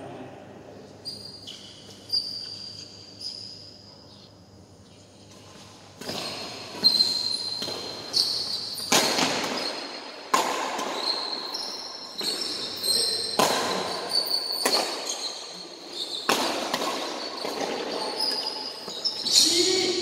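Badminton rally: rackets strike the shuttlecock sharply about once a second from about six seconds in, with high-pitched squeaks of court shoes on the floor throughout. The hits ring on in the large hall.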